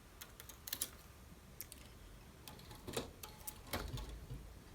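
Faint, irregular light clicks and taps of a metal transfer tool and latch needles on a knitting machine's needle bed as stitches are moved over by hand.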